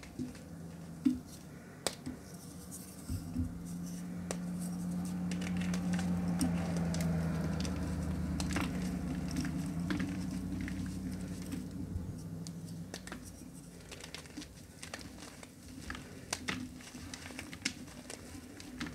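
Reformed gym chalk being crushed, with dry crackling and crumbling clicks throughout. A low hum swells in the middle and fades away.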